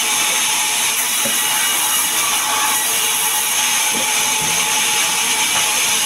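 Large vertical band saw running and cutting lengthwise through a sengon log: a steady, loud, high-pitched hiss and whine from the blade.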